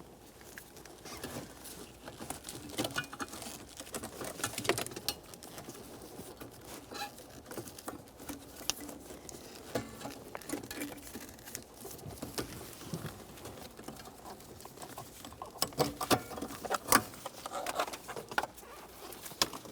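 Irregular light clicks, scraping and rustling of the ignition switch and lock cylinder assembly and its plastic wiring harnesses being worked out through a Honda Accord steering column, busiest and loudest near the end.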